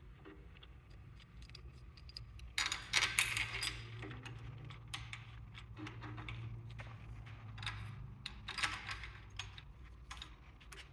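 Metal bolts and tool parts clinking and rattling as a valve spring compressor is fitted to a cylinder head, loudest in two clusters about three seconds in and near nine seconds. A steady low hum runs underneath.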